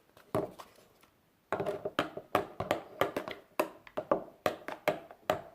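Slime being worked in a bowl: one sharp click, then from about one and a half seconds in a steady run of sharp clicks, about three a second.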